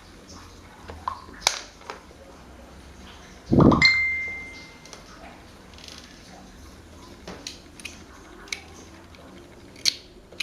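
Metal parts being handled and set down: scattered light clicks and taps, and about three and a half seconds in a heavier knock followed by a short metallic ring.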